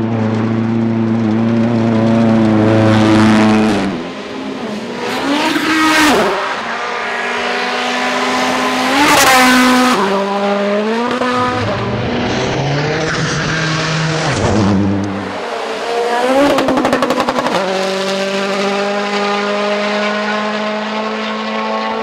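A string of turbocharged rally cars at full throttle on gravel stages, one after another: engines held at high revs, changing gear, and several cars sweeping past close by with a rise and fall in pitch. A rattling burst comes about two-thirds of the way through.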